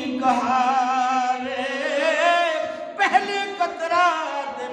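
A man singing a line of devotional Urdu-Punjabi verse in a drawn-out, wavering melody over a steady held drone. There are two sung phrases, and the second begins about three seconds in.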